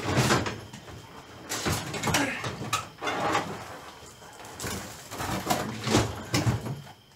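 Plastic and metal car interior parts rattling, scraping and clunking in several irregular bursts as a lower dash panel and its metal bracket are pulled loose and moved around.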